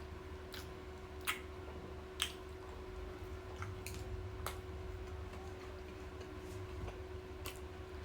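Mouth sounds of someone chewing a Big Mac: scattered wet clicks and smacks, two sharper ones between one and two seconds in, over a steady low hum.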